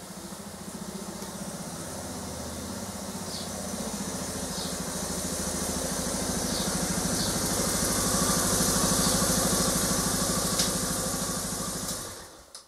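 Suzuki DR650 single-cylinder four-stroke engine running at low speed as the motorcycle rolls up, growing louder as it comes close, then switched off near the end.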